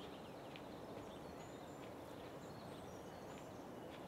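Faint woodland ambience with scattered short bird chirps over a steady background hush.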